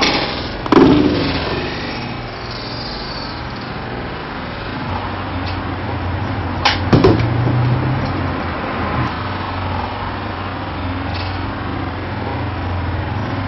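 A distant motor drones steadily with a low hum. A loud sharp knock sounds about a second in, and two more sharp knocks close together near the middle.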